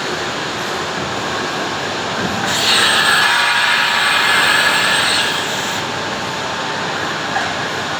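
Awea LG5030 double-column vertical machining center running with a steady mechanical noise. From about two and a half seconds in to about five and a half, a louder, higher hiss comes in over it and then drops back.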